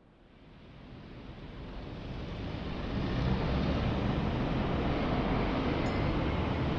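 Steady low rumbling city background noise, fading in over the first three seconds and then holding level.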